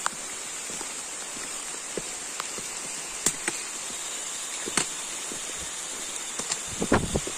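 Footsteps on a rocky trail: scattered sharp knocks and scrapes, with a quick cluster of them near the end. Under them runs a steady rushing hiss.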